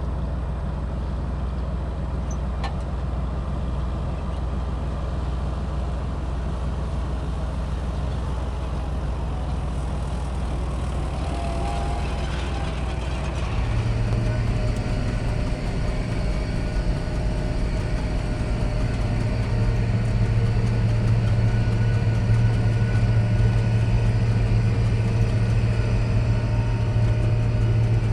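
John Deere 8410 tractor's six-cylinder diesel engine running steadily. About halfway through, its low note steps up in pitch and it gets louder, then holds there.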